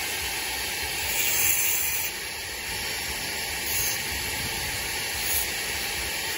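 Angle grinder with a diamond disc grinding a concrete surface: a steady, hissing grind that swells briefly a few times.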